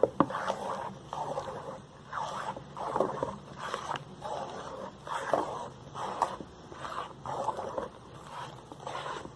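Wooden spoon stirring a thick homemade soap mixture in a metal pot, scraping and sloshing in a steady rhythm of strokes.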